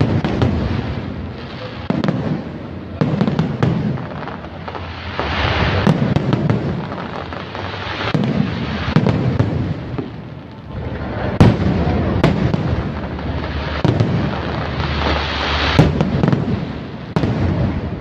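Aerial fireworks display: a continuous run of shell bursts booming at irregular intervals, with crackling and sizzling between them. A few sharp bangs stand out, about eleven, twelve and sixteen seconds in.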